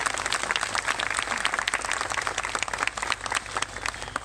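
Audience applause: many people clapping together, thinning out near the end.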